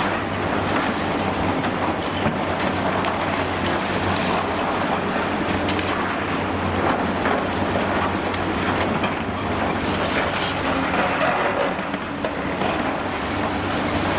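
High-reach demolition excavator's diesel engine running steadily, with irregular crunching and clatter of concrete being broken.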